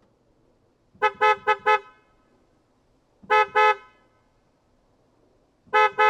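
Car horn honking in short, steady-pitched beeps: a quick run of four about a second in, two more a couple of seconds later, and another run starting near the end.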